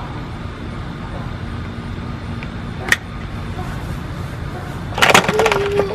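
Plastic toy race-car track pieces clattering and clicking near the end, over a steady low rumble, with one sharp click about halfway through.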